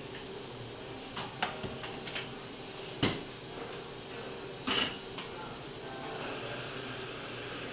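Clinks and knocks of cups, metal milk pitchers and espresso-machine parts being handled at an espresso bar, over a steady low hum. The knocks are scattered, the loudest a single sharp one about three seconds in, followed by a short clatter just before five seconds.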